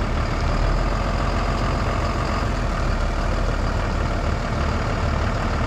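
Diesel engine of an International-chassis Super C motorhome running steadily near idle as the rig creeps forward slowly on gravel; a steady low rumble.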